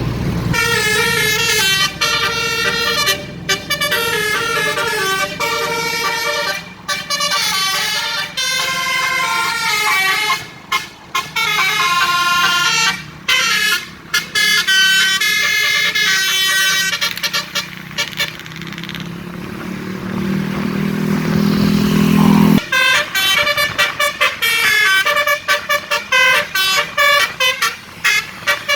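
Bus basuri musical horn (telolet) playing a loud tune of stepped notes with short breaks. Around two-thirds of the way in, a low rising tone swells and cuts off sharply. Near the end the horn switches to a rapid stuttering run of short notes.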